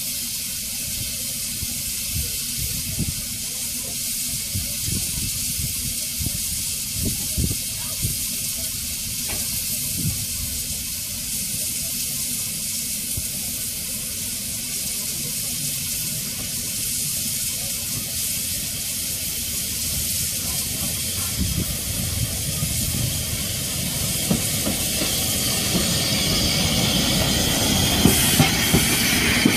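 Steady hiss of steam from a steam locomotive standing at the platform, over a low rumble. In the last few seconds it grows fuller and louder as SECR P class tank engine No. 323 'Bluebell' runs in alongside, with a few clanks near the end.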